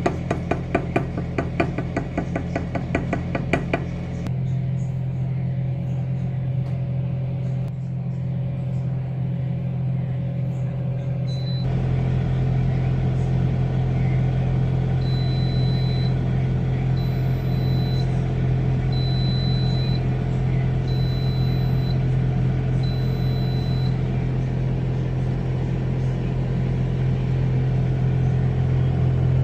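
Steady low machine hum of a running kitchen appliance. A fast run of clicks, about eight a second, fills the first four seconds. Around the middle an appliance timer beeps five times at a high pitch, each beep about a second long, which is typical of a cooking cycle finishing.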